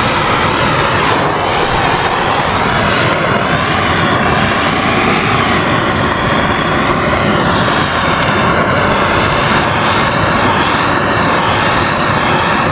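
A gas torch flame burning steadily and loudly while it heats heat-shrink tubing over a wire splice.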